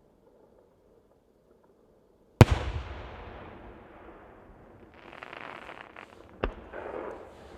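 Aerial firework shell bursting with one very loud bang about two and a half seconds in, its rumble echoing away for several seconds. Crackling follows, then a second, sharper bang near the end, with more crackling.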